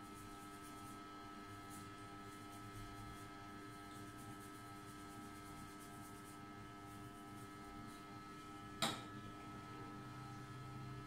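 Steady electrical mains hum, with faint scratchy rubbing of fingertips working through wet hair and over the scalp. A single sharp click comes about nine seconds in.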